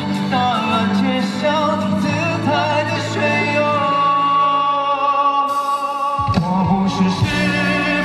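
Male pop vocalist singing live into a handheld microphone over a band accompaniment through the concert PA. He holds one long note midway while the bass drops away, and the full low accompaniment comes back in about six seconds in.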